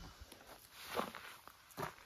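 Footsteps on a dusty dirt track: two short scuffing steps less than a second apart.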